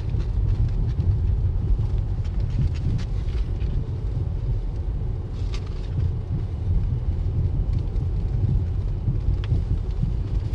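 Car road noise heard from inside the cabin: a steady low rumble of tyres rolling on a dirt road, with a few light ticks now and then.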